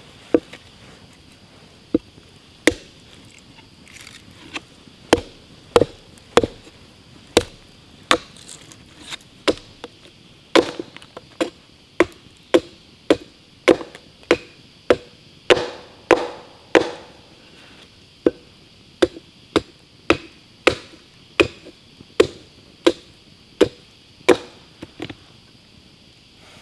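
Chopping blows on a wooden plank against a log block: about thirty sharp wooden knocks at an uneven pace, coming faster, about one and a half a second, in the middle.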